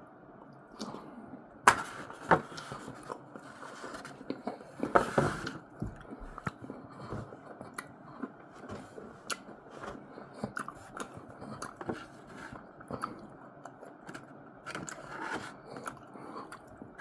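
Close-up chewing and wet mouth sounds of a person eating a bite of warm chocolate caramel skillet cookie with ice cream, with a few sharp clicks in the first five seconds.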